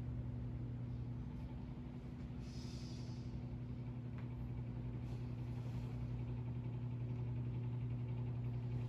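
A steady low machine hum, with a short hiss about two and a half seconds in.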